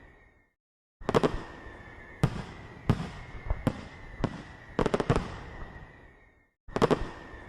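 Fireworks shells bursting in a string of sharp bangs and crackles, each trailing off. The sound drops out to silence twice, briefly.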